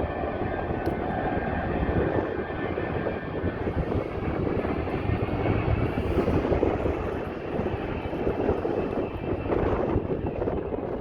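Aircraft engine running steadily and loudly, a dense rushing noise with a faint high whine over it in the first half that fades.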